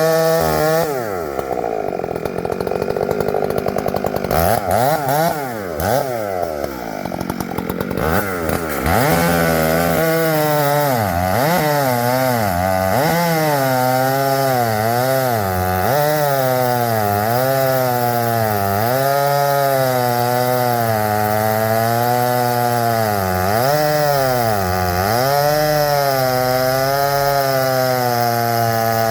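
Chainsaw cutting poplar wood. The engine revs up and down over the first several seconds. From about nine seconds in it runs at high speed under load, its pitch dipping and recovering again and again as the chain bogs in the cut.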